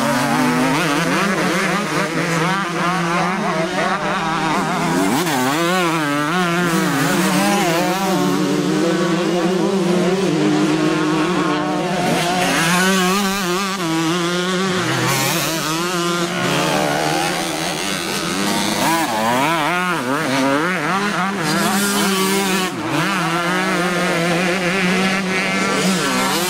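Several 125cc two-stroke motocross bikes racing round the track, their engines revving up and down again and again as they pass and overlap.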